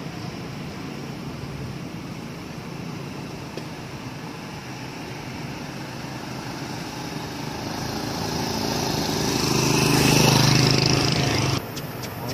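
A small engine running, growing louder over several seconds, then cut off suddenly, over a steady outdoor hiss.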